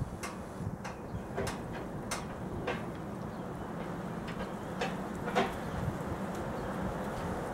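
Scattered light clicks and metallic taps from hand tools and metal parts while a charcoal grill's lid hardware is fastened during assembly, over steady wind noise on the microphone.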